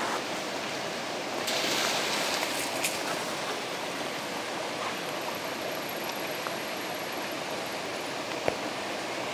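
Shallow forest stream running over stones at a trail ford: a steady rushing of water, a little brighter about two seconds in, with a single sharp click near the end.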